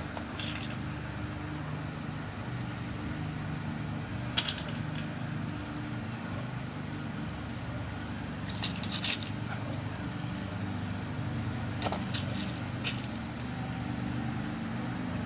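Small metal lock pins clicking now and then as they are dropped into a lock cylinder while it is rekeyed: a single click, then a short cluster, then a few more near the end. A steady low hum runs underneath.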